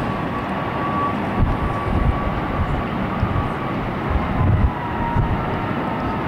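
Steady low roar of a ruptured high-pressure natural gas pipeline burning in the distance, with gusts buffeting the microphone and a faint thin whine held above it.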